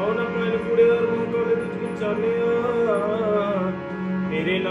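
Sikh kirtan: a male voice singing a gliding, ornamented melody over the steady reed tones of a harmonium.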